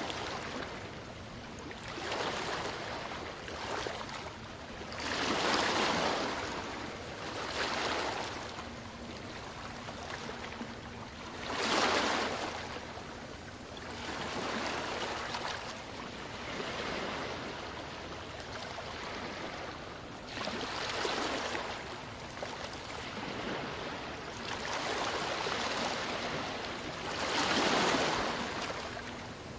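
Small waves washing onto a sandy beach, each wash swelling and fading every few seconds.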